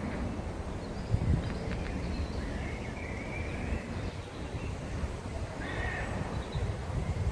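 Birds chirping several times over a steady low rumble.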